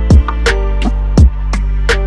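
Background music with a steady drum beat: deep kick thumps and sharp hits under held, plucked-string notes.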